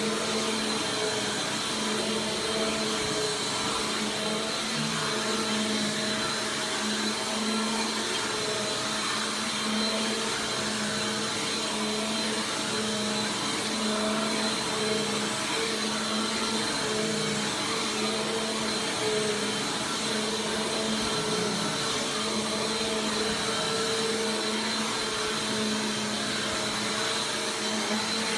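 Bissell PowerForce Compact Turbo 2690 upright vacuum cleaner running steadily, a constant motor hum and whine over the rush of air.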